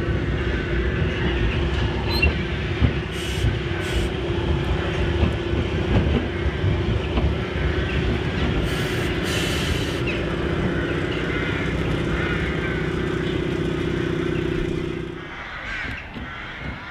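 Manx Electric Railway tramcar No. 7, an 1894 Milnes vestibuled saloon, running slowly along the track with a steady electric hum and wheels rattling and clanking on the rails. The hum and running noise stop about fifteen seconds in as the car comes to a halt.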